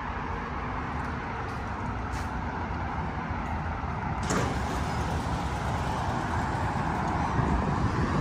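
Road traffic on a wide street: a steady noise of passing vehicles that grows louder about halfway through and keeps rising toward the end.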